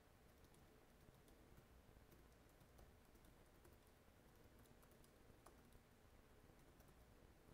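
Faint typing on a computer keyboard: irregular, quick keystrokes as a sentence is typed.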